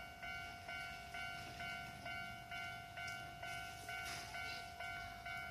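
Japanese level crossing warning bell ringing, an electronic two-note-like chime repeating about twice a second, signalling that a train is approaching.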